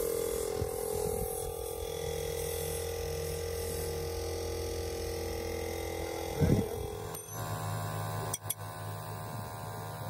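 A steady low hum made of several held tones, which shifts to a different set of tones about seven seconds in. A brief voice cuts in just before the shift, and a couple of sharp clicks follow about a second later.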